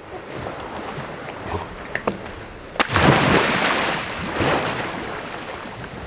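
Sea water splashing and sloshing as a scuba diver wades out from the shore, with a few light clicks in the first seconds. The loudest splashing comes about three seconds in and dies down over the next second or two.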